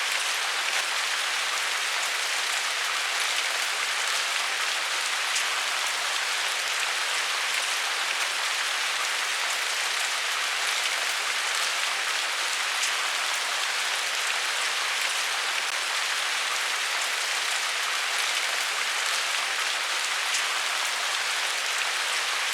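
Steady rain falling, a dense even hiss of drops with faint scattered individual drop ticks.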